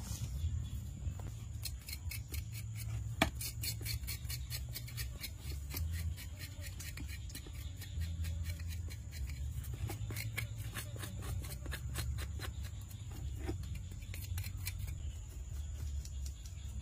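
A knife blade scraping charred skin and singed hair off a fire-blackened goat's head, in a quick run of short scraping strokes, with one sharper click about three seconds in.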